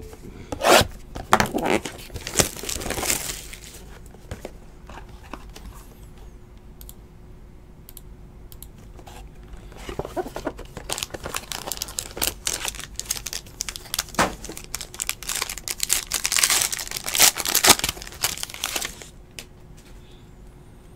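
Tearing and crinkling as a sealed trading-card box is unwrapped and its foil-wrapped pack is ripped open. The sound comes in two spells: one in the first few seconds, and a longer one from about ten seconds in until shortly before the end.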